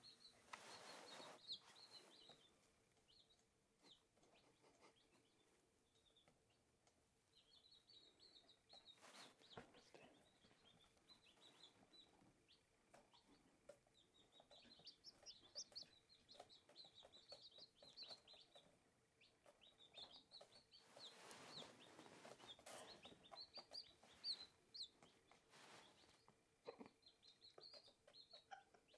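Newly hatched Silkie chicks peeping: many short, high chirps in irregular clusters, quiet in places and busier after the middle. A few short bursts of noise come in between.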